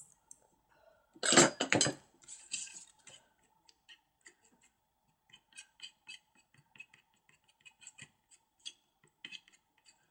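Metal palette knife mixing acrylic paint with glazing medium on a palette: a short clatter of knocks about a second in, then a scattered string of light clicks and taps.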